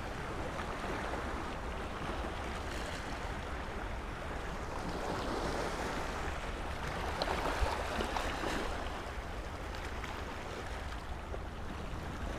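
Sea water washing against a rocky shore, steady throughout, with wind rumbling on the microphone.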